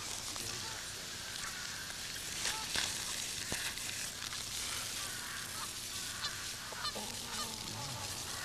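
Chickens clucking, with short calls scattered through, over steady outdoor background noise.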